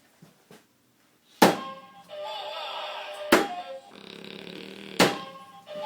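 Three sharp knocks about two seconds apart, the loudest sounds here, with music playing between them.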